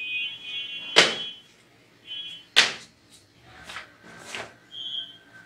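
Edited intro sound effects: a short bright ringing tone, then two sharp, echoing hits about a second and a half apart, followed by three quick whooshes like a staff being swung.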